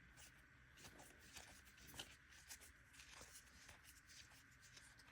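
Faint, irregular rustles and light ticks of trading cards being handled: Magic: The Gathering cards flicked and slid through the hands.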